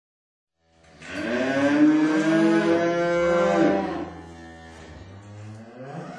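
Cows mooing: one long, loud moo starts about a second in and lasts about three seconds, then quieter, lower moos follow.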